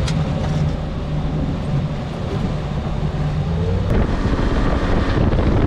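A fishing boat running across the lake under power: a steady engine drone with wind buffeting the microphone and water rushing past the hull. A short rising whine comes in about four seconds in.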